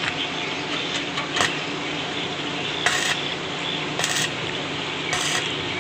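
Stick (arc) welding, tacking a steel spout extension onto a coffee huller: short bursts of crackling arc about three, four and five seconds in, over a steady hiss.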